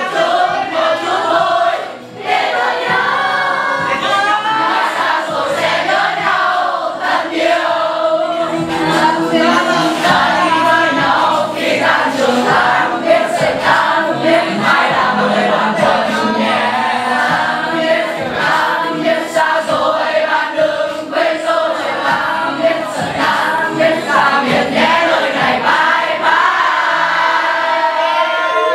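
Music with a choir of many voices singing together over accompaniment, dipping briefly about two seconds in.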